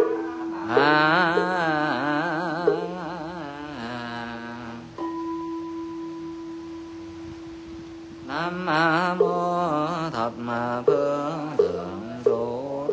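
Buddhist chanting: a voice chants with a wavering, sung pitch to regular knocks about every half second, typical of a wooden fish. A bell is struck at the start and again about five seconds in, each time ringing on steadily for a few seconds; between about five and eight seconds the bell rings with no chanting.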